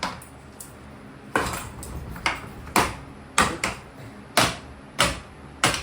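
Golf putter whacking a cheap 24-inch ceiling fan: about eight sharp, irregular strikes, each with a brief clattering ring.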